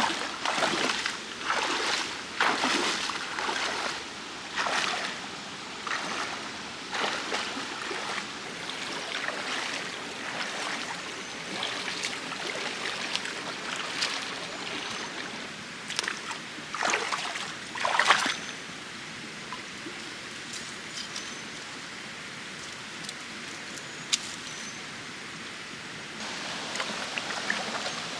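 Water in a mountain stream flowing steadily, broken by irregular splashes and sloshes through the first two-thirds, the loudest about eighteen seconds in, then settling to an even flow.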